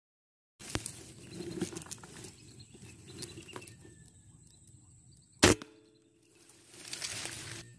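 A single air rifle shot, one sharp crack about five and a half seconds in, over a steady outdoor background, followed a second later by a rush of splashing as the hit whistling duck thrashes on the water.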